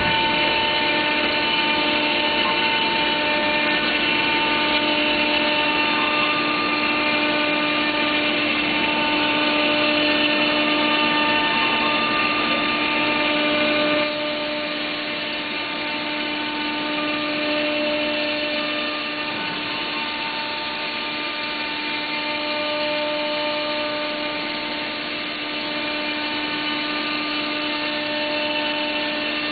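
Biesse Rover 336 CNC router's spindle running with a steady whine as the router bit cuts through the board, the sound of the cut mixed with the machine's hum. The level drops slightly about halfway through.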